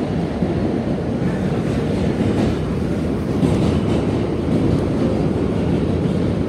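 An R160B subway car with Siemens propulsion, heard from inside the car while it runs along the track: a steady low rumble of wheels on rail and running gear.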